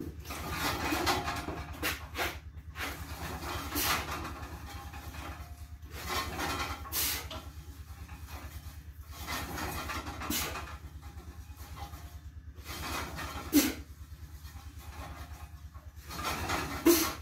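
A man breathing hard through a set of cable triceps pushdowns on a homemade pulley machine: a short, noisy rush of breath every couple of seconds with the reps, and two sharper knocks near the end, over a steady low hum.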